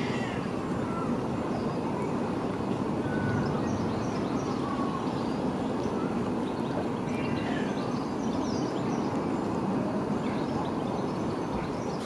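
Steady outdoor background rumble, like distant traffic, with faint, brief bird chirps scattered over it.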